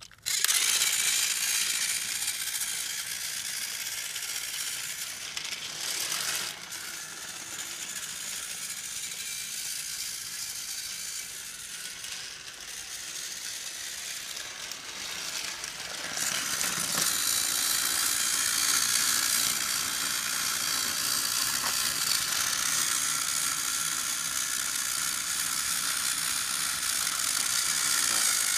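Battery-powered Thomas TrackMaster toy engine switched on, its small geared motor starting suddenly and then running steadily as it pulls a log car round plastic track. It is somewhat quieter for a stretch and louder again from a little past the halfway point.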